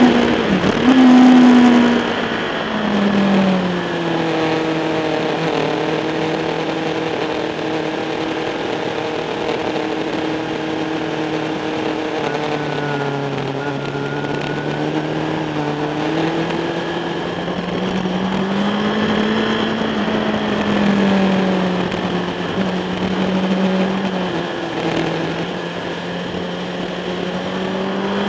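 Sport motorcycle engine heard from an onboard camera on the fairing. The revs drop sharply about two seconds in, then hold lower with small rises and falls through a long leaning corner, and climb again near the end as the bike accelerates out. Wind rush runs underneath.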